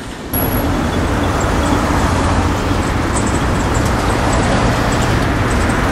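A freight train's cars rolling across a road overpass, a steady noise mixed with cars and a pickup truck passing on the street beneath. It starts abruptly just after the start.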